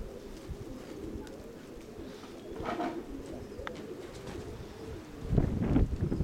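Nikolaev pigeons cooing steadily, with wind buffeting the microphone in a loud low rumble near the end.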